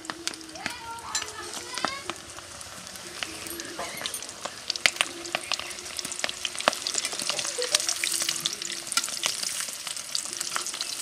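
Battered chicken pieces deep-frying in hot refined vegetable oil in a steel kadai: a steady sizzle full of sharp crackling pops, with a slotted spoon moving the pieces. The sizzle grows louder from about six seconds in.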